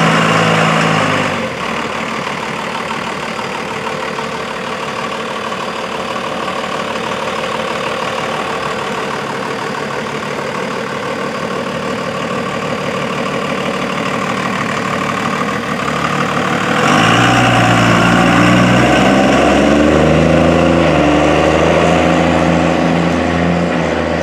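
Twin-turbo Cummins diesel pickup engine running, loudest at the very start. About two-thirds of the way through it gets louder, the engine note rising as the truck accelerates, and it eases off near the end.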